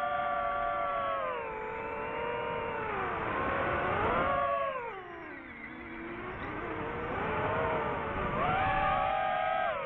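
DJI FPV drone's motors and propellers whining, the pitch sliding down and up with the throttle. It sinks lowest about halfway through, then climbs again near the end.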